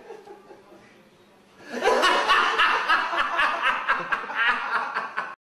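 A person laughing hard in rapid bursts, starting about two seconds in and cutting off abruptly near the end.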